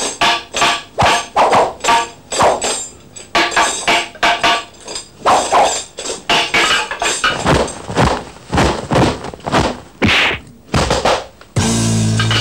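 Staged sword-and-staff fight: a rapid string of weapon clashes and blows, about two to three a second, many with a short ringing tail. Near the end a loud sustained chord comes in and cuts off abruptly.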